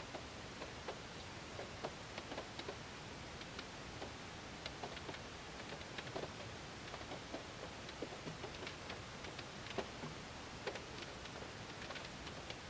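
Raindrops striking a car's window and body, heard from inside the car: a steady soft hiss under irregular, sharp individual drop ticks, several a second.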